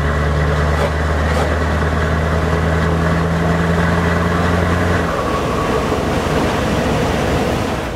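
Scania 164L 580's V8 diesel with open exhaust pipes, heard from inside the cab while the truck drives: a loud, steady, deep engine drone. About five seconds in, the steady note drops away and the sound turns rougher and less even.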